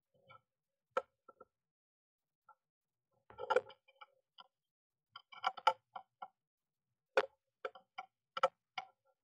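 Blue tit moving about inside a wooden nest box: irregular taps, knocks and scratches of its feet and beak on the box and nesting material, with a cluster of louder knocks about three and a half seconds in and a run of sharp taps from about five seconds on.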